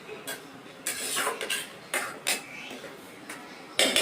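Metal spatula scraping and knocking against a cooking pan as duck curry is stirred: a run of short, sharp scrapes and clinks, the loudest near the end.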